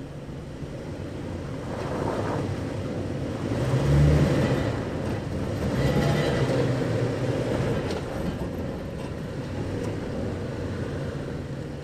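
Toyota 4Runner's 4.0-litre V6 engine running under load as the SUV crawls over deep ruts, its sound swelling about four seconds in and again around six seconds.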